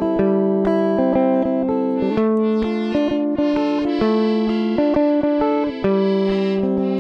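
Background music: a plucked guitar picking a steady run of notes, about four a second, that ring on over one another.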